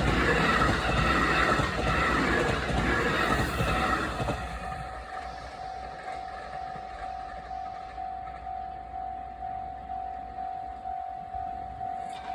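A train passes over a level crossing, its rumble loud for the first four seconds and then dying away. Throughout, the crossing's electronic warning bell keeps ringing a single tone at a steady beat, about one and a half strikes a second, which signals that the barriers are still down.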